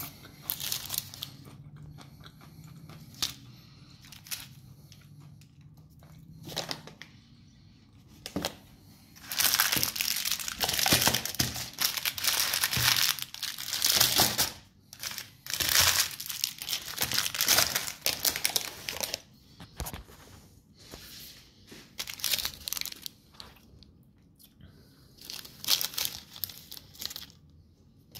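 Crinkling plastic candy wrappers of Ferrero Raffaello pralines being handled and unwrapped. A few small clicks come at first, then long stretches of dense crackling through the middle, and more crackling near the end.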